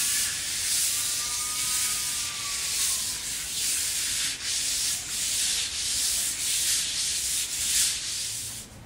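Hand sanding a wooden yacht hull with a sticky-back sandpaper pad on a gloved hand: a steady, rhythmic scratching hiss of the paper rubbing back and forth over the timber planks, in strokes under a second apart, for the final smoothing before paint.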